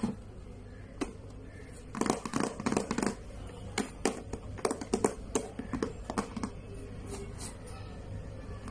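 Hands handling a plastic storage box of toy clay: a quick flurry of plastic clicks and knocks about two seconds in, then scattered single clicks. A steady low hum runs underneath.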